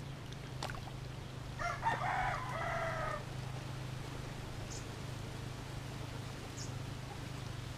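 A rooster crowing once, starting about a second and a half in and lasting about a second and a half, over a steady low hum.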